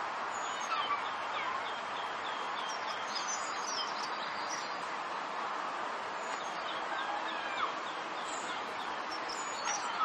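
Steady rush of running meltwater, with small birds chirping over it: a quick series of short repeated chirps, about four a second, in the first few seconds, then scattered higher calls.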